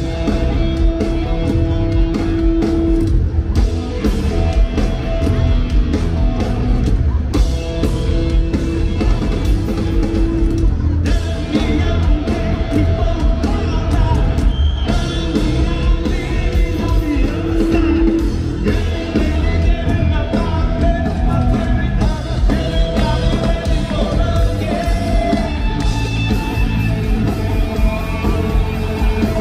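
Rock band playing live through a stadium PA, heard from the crowd: heavy bass and drums, held guitar notes and a singing voice.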